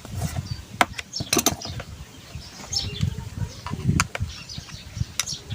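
Sharp clicks and light knocks as the exhaust fan's motor and parts are handled, a few scattered single clicks and a quick cluster about a second and a half in.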